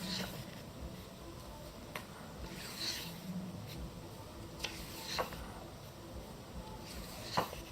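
Pages of a thick photobook magazine being handled and turned by hand: faint paper rustles with a few light clicks and taps, the sharpest one near the end.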